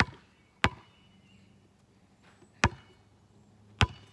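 Basketball dribbled on an asphalt driveway: four sharp bounces, two close together at the start, then two more spaced about a second apart.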